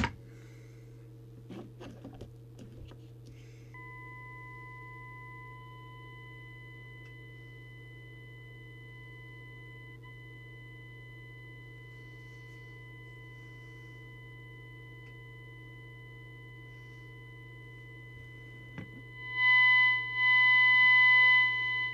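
Jesan KT002 CB walkie-talkie's small speaker giving a steady whistle of about 1 kHz with overtones over a low hum. Near the end it breaks into three loud bursts of whistle with hiss. The racket is the set's audio instability, caused by a failing electrolytic capacitor in its audio amplifier.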